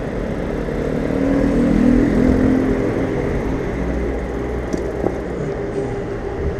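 Steady rush of a bicycle ride on a wet city street: tyres on wet tarmac and moving air. A hum swells and slides down in pitch between about one and three seconds in, then settles back.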